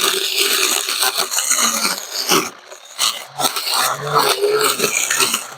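Cordless 21-volt battery brush cutter running and cutting through grass, a steady noisy whirr that dips briefly a little before halfway, then picks up again.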